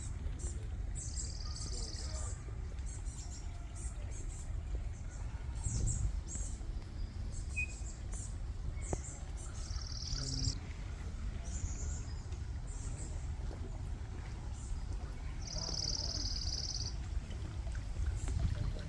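Birds chirping outdoors, with many short high calls and a few longer buzzy trills, one near the middle and a louder one about two-thirds through, over a steady low rumble.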